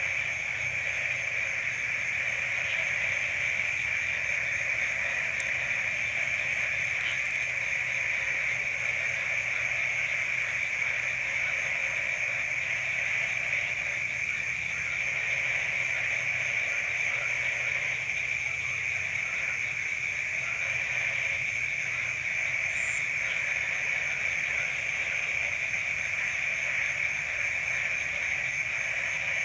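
Dense night chorus of insects and frogs in a rice field: a steady, high-pitched shrill drone with a fast, even pulsing trill above it, unbroken throughout.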